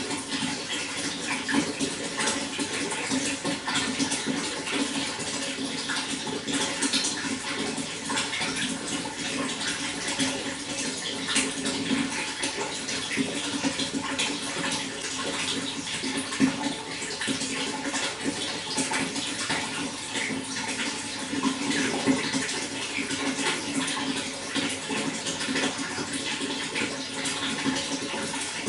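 Running water flowing and splashing steadily, a dense continuous patter of small splashes with a low gurgling undertone.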